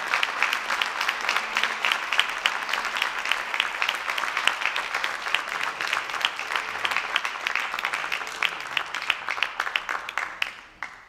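Audience applauding, a dense run of hand claps that thins out and fades away near the end.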